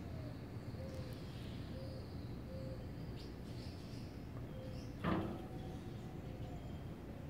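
Outdoor garden ambience: a steady low rumble with faint bird chirps and a faint low note repeated about once a second. About five seconds in there is one brief, louder harsh sound.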